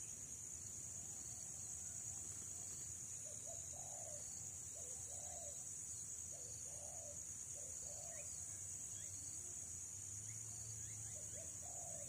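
Spotted dove cooing: a run of low coos, a phrase every second or two, over a steady high-pitched drone of insects.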